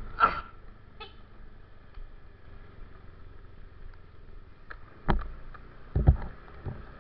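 Motorcycle engine running at low revs as the bike rolls slowly, with a sharp knock near the start and heavy thumps about five and six seconds in.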